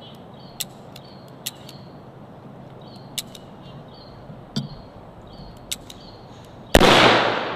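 A single handgun shot about seven seconds in: a sharp crack with a long echoing tail.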